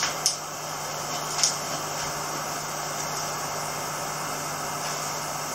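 Steady background noise with a low, even hum. Two brief sharp clicks come in the first second and a half.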